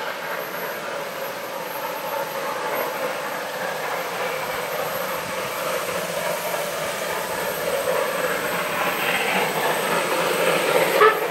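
Train approaching but not yet in view, heard as a steady rumble that grows slightly louder, with a short sharp sound near the end.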